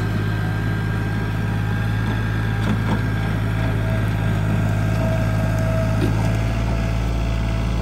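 John Deere tractor engine running steadily, with wood debris cracking and scraping under the box blade as it drags brush across the ground.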